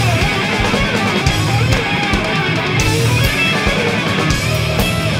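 Loud, dense heavy rock music led by distorted electric guitar, with rapid drum hits throughout.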